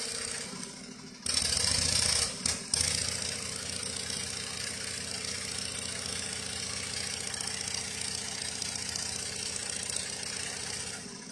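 A small engine running steadily at an even speed. Partway through, a louder rush of noise comes in suddenly for about a second and a half.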